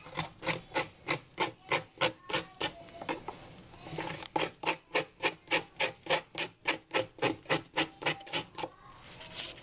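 Small plastic scraper rasping algae off an algae scrubber screen in quick back-and-forth strokes, about four a second. The strokes come in two runs, with a pause of about a second about a third of the way in.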